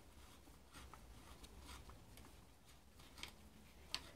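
Faint, scattered metal clicks and light rubbing as a socket on an extension is fitted to the mounting bolts of a power steering pump, with two sharper clicks near the end.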